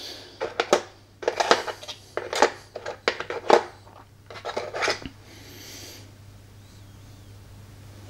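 Board-game miniatures and their packaging being handled: a run of short clicks and rustles over about five seconds, then only a steady low hum.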